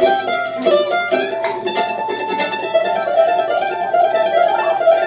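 Mandolin played live: quick runs of picked notes, then one note held from about a second and a half in.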